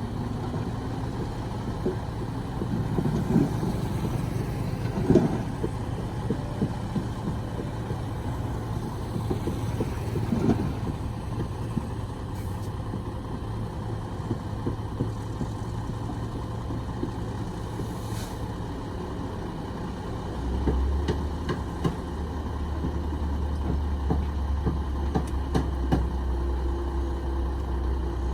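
Heavy construction vehicles' diesel engines running, with scattered knocks and clunks in the first half. About two-thirds of the way through, a deeper, louder engine drone sets in and holds.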